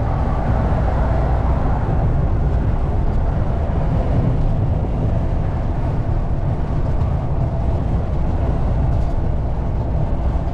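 HGV diesel engine and road noise heard inside the cab while driving, a steady low rumble, with rain on the truck.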